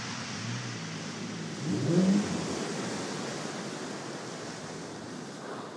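Waves breaking and washing over a shingle beach with wind, and about two seconds in the lifeboat's engine revs briefly with a rising pitch.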